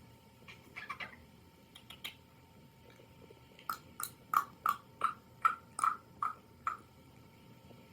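Pet bird making its sound effects: a few faint clicks, then a rapid run of about ten short, sharp clicking sounds, roughly three a second.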